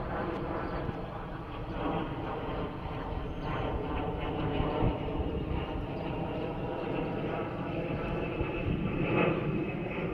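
A steady engine drone, a little louder about nine seconds in.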